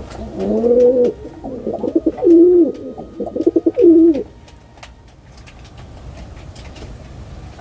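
Pigeon cooing: a few low, throaty coos over the first four seconds, then they stop.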